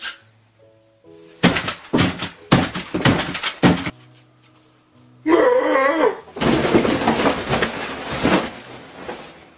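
A run of heavy thuds and bangs, then a loud wavering cry, then a long crashing clatter as the table setting and camera are knocked over. Light background music plays in the gaps.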